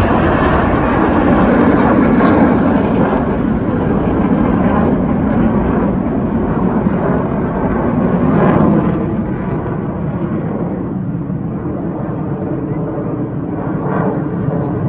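Loud, continuous jet engine noise from the Blue Angels' F/A-18 Hornet formation passing overhead. It grows a little quieter after about nine seconds as the jets climb away.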